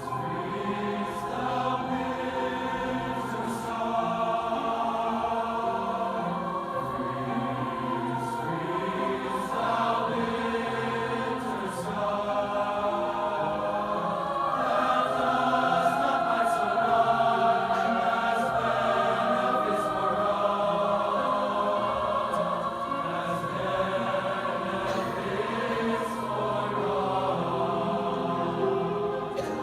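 A school festival choir singing in harmony, many voices together, swelling louder about halfway through.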